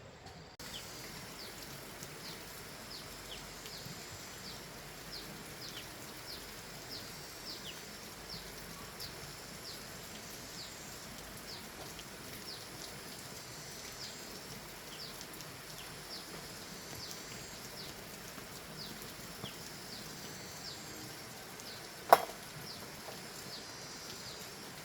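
Outdoor countryside ambience with a steady hiss and many short, high, downward-sliding chirps from insects or birds, about one or two a second. One sharp knock stands out about 22 seconds in.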